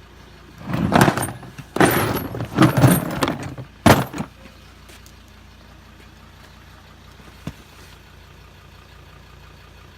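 Clattering and scraping of a plastic tool case being handled, ending in a sharp knock about four seconds in, over a vehicle engine idling steadily.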